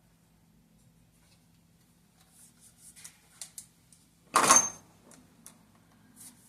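Hand tools and metal parts being handled: scattered light clicks and rattles, then one loud metallic clatter with a short ring about four seconds in, followed by a few more small clicks.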